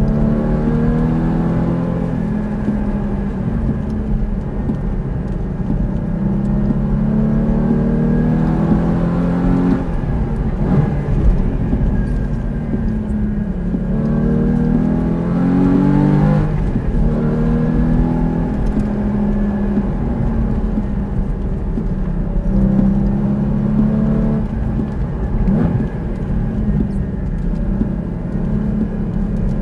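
Porsche sports car's engine heard from inside the cabin, revving up through the gears in steps and dropping in pitch under braking and downshifts, several times over.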